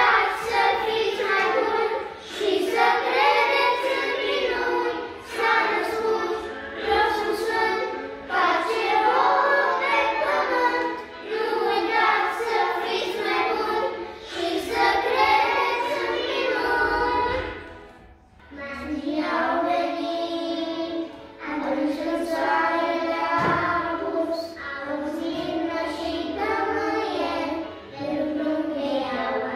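A group of young children singing a Christmas carol together in Romanian. About two-thirds of the way through there is a short break, then the singing goes on.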